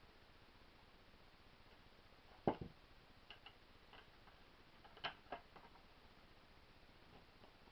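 Sharp small clicks and knocks of the air pistol's parts being handled on the bench, against a quiet room: a loud double click about two and a half seconds in, a few light ticks after it, another double click about five seconds in, then a couple of faint ticks near the end.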